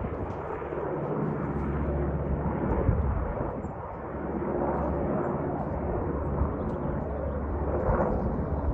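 Two UH-60 Black Hawk helicopters flying over: a steady low rotor and turbine drone that dips about four seconds in and then builds again.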